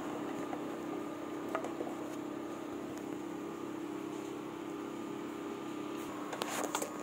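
A steady low mechanical hum over a constant hiss, with a few short light clicks near the end.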